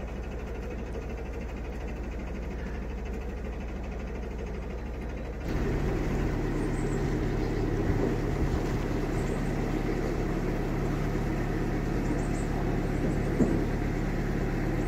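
Narrowboat engine running steadily with a low, even hum. About five and a half seconds in it becomes louder and rougher, with a couple of faint knocks later on.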